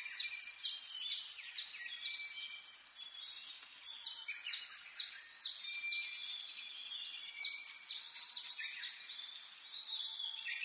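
Small birds chirping in quick runs of short, falling chirps, several a second, easing off briefly in the middle. Behind them runs a steady, very high, finely pulsing trill.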